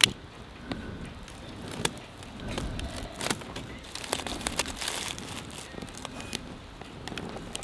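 Dry leaves and twigs crackling as a small campfire catches from a lighter, with scattered sharp snaps.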